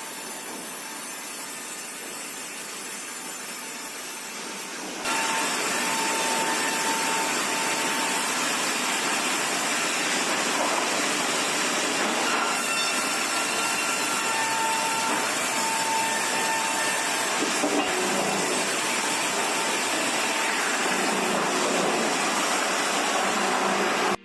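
Sawmill machinery cutting pine logs: a steady rushing machine noise that gets louder about five seconds in, with a few brief high whines from the saws.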